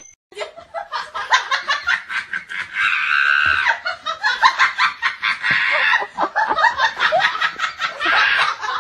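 A person laughing hard, in rapid, continuous bursts of several a second.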